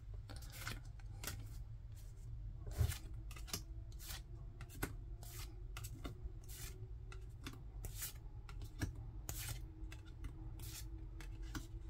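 Pokémon trading cards being flipped through by hand, each card slid off the front of the stack to the back: soft, quick card-on-card swishes and flicks, about one every half-second to a second.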